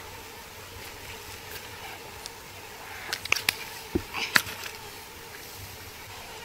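Cockle shells clicking and clacking together by hand in a quick cluster of sharp knocks, about three to four and a half seconds in, over a steady background hiss.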